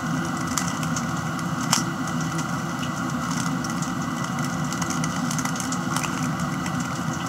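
Steady engine-like machine hum with no change in level, with a few faint clicks as a plastic Rubik's cube's layers are turned by hand.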